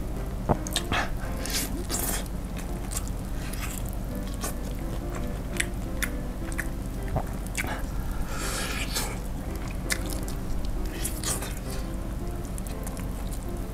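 Close-miked biting and chewing of crispy fried chicken coated in sauce, with irregular crunches and wet smacks. Soft background music runs underneath.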